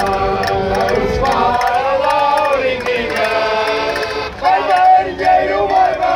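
Group of men singing a folk song together to a diatonic button accordion, the accordion holding steady chords under the voices. The singing swells louder about four and a half seconds in.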